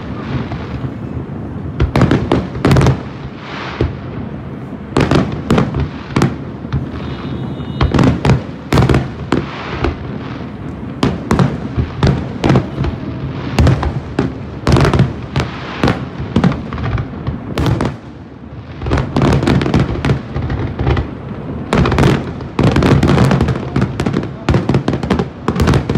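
Aerial fireworks going off: many sharp bangs and crackles in irregular clusters, over a steady low rumble.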